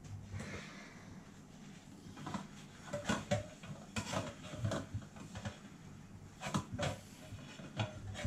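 Dishes knocking and clinking in a stainless steel sink while a porcelain plate is scrubbed with a sponge, in irregular clatters that come thickest from about two seconds in.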